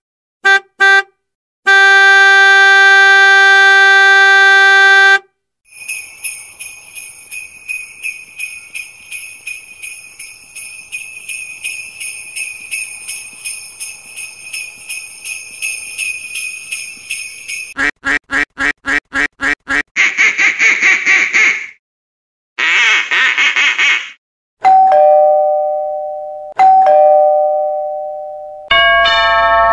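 A string of separate sound clips: a few beeps and a long buzzing tone, then sleigh bells jingling steadily for about twelve seconds, then a rapid buzz and two short noisy bursts, a two-note ding-dong chime played twice, and a doorbell chime starting near the end.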